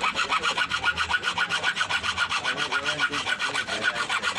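Rapid, even scraping strokes, about five a second, from a cobbler working a shoe against the wooden board on his lap.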